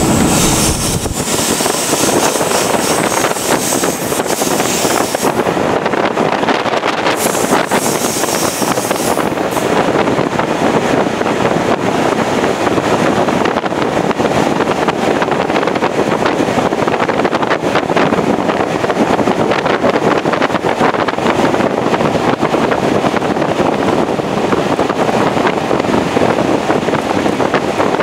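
Wind rushing over a microphone held out of the window of a moving diesel-hauled train, with the steady running noise of the train beneath. The wind hiss is heaviest in the first few seconds and again around eight seconds in.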